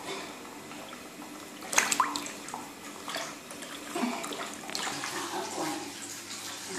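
Bathwater splashing in a bathtub as a wet Persian cat's fur is rubbed and washed by hand, in uneven splashes with a sharp one about two seconds in.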